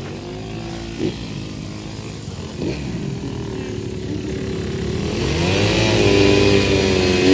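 Small engine of a youth quad ATV running and revving, its pitch wavering. It grows louder and higher over the last couple of seconds as the quad passes close.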